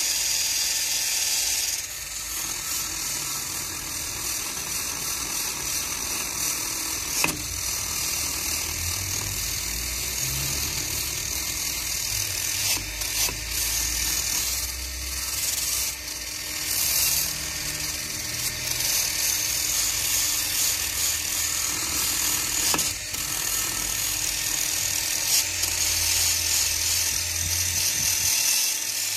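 Cordless drill spinning a wire brush against the gasket face of a Honda Activa-S aluminium transmission case, scrubbing off old gasket residue. A steady whirring and scratching that is a little louder in the first two seconds and swells and dips slightly as the brush is pressed on.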